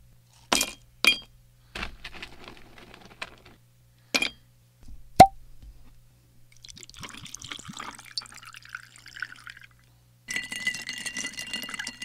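Glass clinking several times, with a sharp clink about five seconds in, followed by liquid being poured in two spells.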